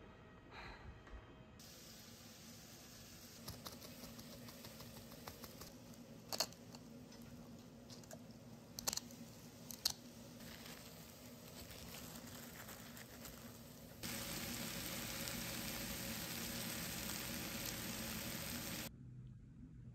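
Quiet kitchen preparation with a few sharp clicks and knocks. About fourteen seconds in, green beans and onion start sizzling in a frying pan, a steady hiss for about five seconds that cuts off abruptly near the end.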